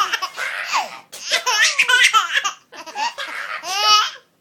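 A small child laughing hard in three high-pitched bouts of rapid giggling, with short breaths between them.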